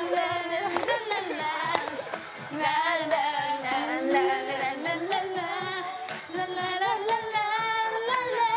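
Women singing a pop song into a karaoke microphone over the song's backing music.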